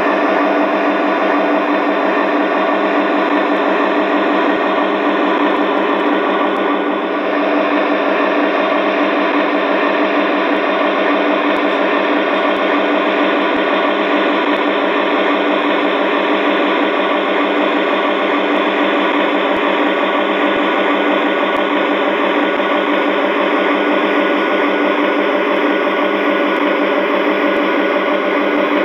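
An LGB G-scale SD40 model locomotive's DCC sound decoder playing a steady diesel engine sound through the model's small onboard speaker, thin with no deep bass, as the model runs along the track.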